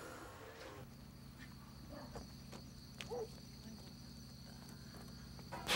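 Crickets chirping, a faint, steady high-pitched insect chorus that stops abruptly just before a sudden loud noise at the very end.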